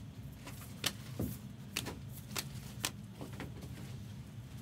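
Trading cards being flipped through by hand: a run of short, sharp card flicks and snaps, about nine of them, at an uneven pace.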